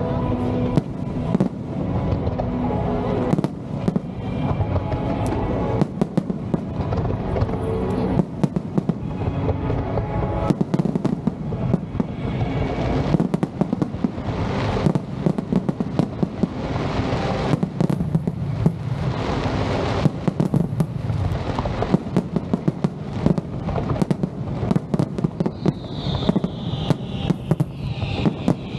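Fireworks display: rapid, dense bangs and crackles of aerial shells over a continuous low rumble, with show music mixed in, and a run of falling whistles near the end.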